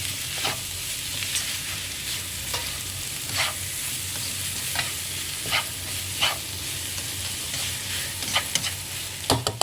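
Shredded cabbage and carrot sizzling in hot oil as they are stir-fried, with a utensil scraping and knocking against the pan about once a second.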